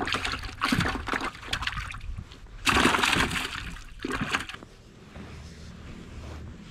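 Water splashing and sloshing as a freshly caught bluegill is dropped into a bucket of water and thrashes there, in a few noisy bursts; the loudest comes about three seconds in.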